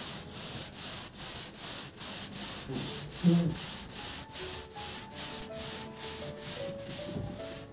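A small paint roller rolled quickly up and down over wet matte paint on a wall, a regular swishing a few strokes a second, with one short thump about three seconds in.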